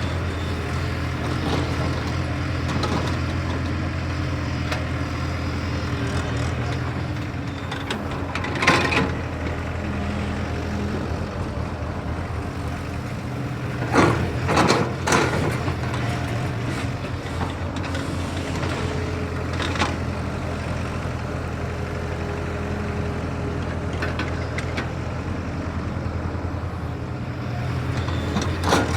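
Diesel engine of a JCB excavator running steadily, with a few short, sharp noises over it about 9 seconds in, twice around 14–15 seconds, about 20 seconds in, and near the end.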